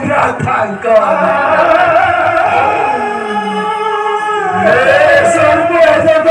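A man singing a drawn-out melodic line of sung verse in a Ramayana folk drama (ramanatya). He holds a long note in the middle, then slides down and back up.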